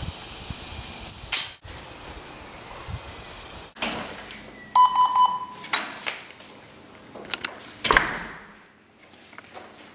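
Interior door sounds: a few separate thuds and clicks, a short pulsed electronic beep about halfway through, and the knob and latch as the door is opened near the end. A sharp metallic clank comes about a second in.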